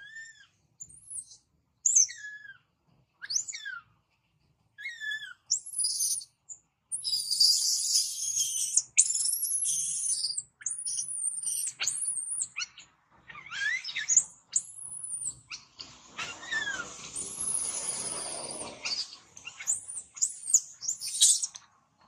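Infant long-tailed macaque screaming in distress as an adult grabs it and carries it off: a run of short, high, arching squeals that swell into long, shrill screams, turning harsher and raspier later on.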